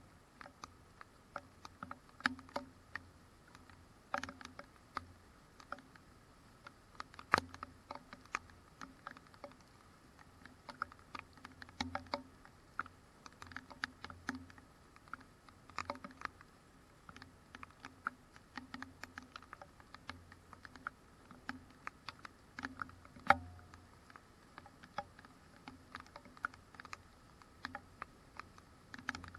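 Raindrops striking a GoPro camera's housing: irregular sharp ticks and taps, several a second, some louder than others.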